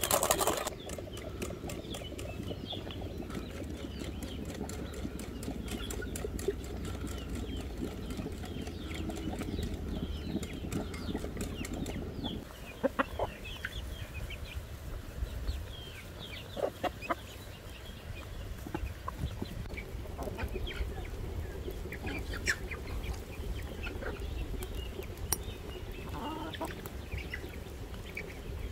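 A wooden spoon beating batter in a glass bowl, cut off within the first second; then a flock of chickens foraging, with scattered short clucks and calls over a steady low background noise.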